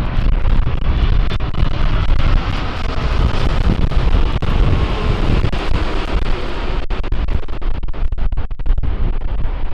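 Boeing 787-9 Dreamliner's jet engines running loud with a deep rumble and a faint whine, wind buffeting the microphone.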